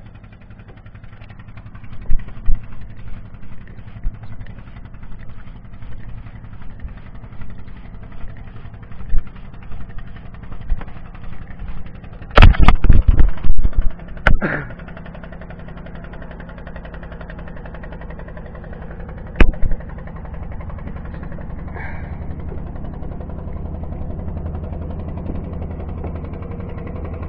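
Fishing boat's engine running with a steady low hum, with scattered knocks and bumps close to the microphone. A cluster of loud knocks comes about halfway through and a single sharp knock a few seconds later.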